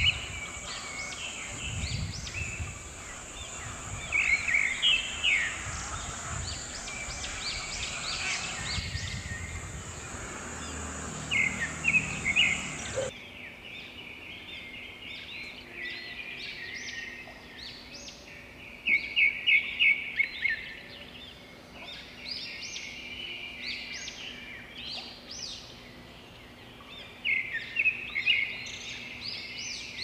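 A chorus of many birds calling at a dusk roost: short repeated chirps and trills, with louder clusters every several seconds. A low rumble underlies the first half and stops abruptly about thirteen seconds in.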